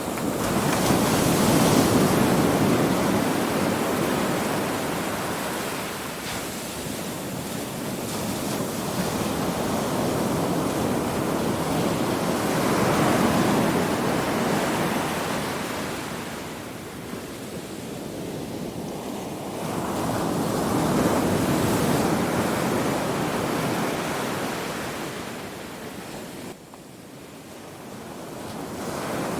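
Ocean waves breaking and washing in, the surf rising and falling in slow surges several seconds apart. The sound drops suddenly near the end, then builds again.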